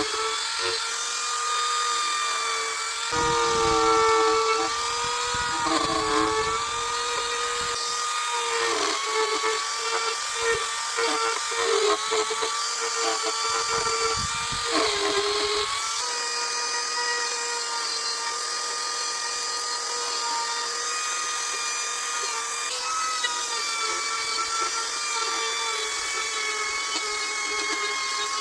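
A high-speed power carving tool running with a steady whine. From about 3 to 16 seconds in it repeatedly dips and rasps as it cuts into the wood, then runs on steadily.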